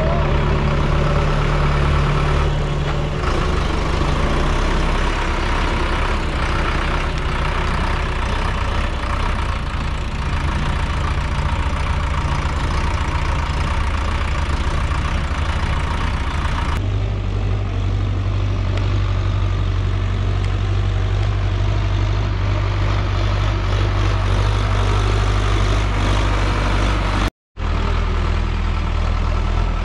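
Solis tractor's diesel engine running steadily while pulling a fully loaded trolley of soil. The drone changes abruptly about seventeen seconds in and drops out for a moment near the end.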